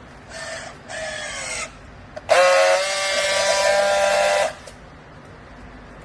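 A horn-like tone: two short sounds that fall in pitch, then one long steady blast of about two seconds.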